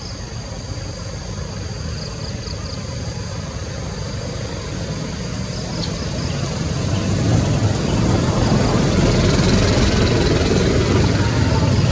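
Low, steady rumble of distant engine noise that grows louder from about seven seconds in, with a faint steady high-pitched whine over it.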